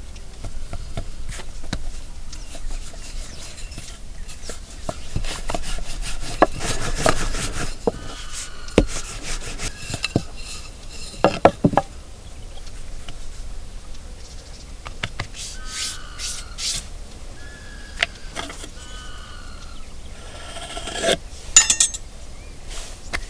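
Kitchen utensils scraping, rubbing and clinking while food is worked by hand, with sharp clicks now and then. Birds give short chirps several times in the middle and near the end.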